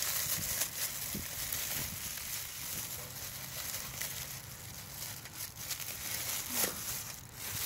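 Plastic oven-roasting bag crinkling and rustling as it is pulled open by hand, with many small crackles.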